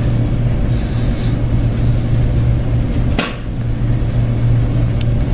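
Steady low hum with a background hiss, and a short sharp click about three seconds in and a fainter one near the end.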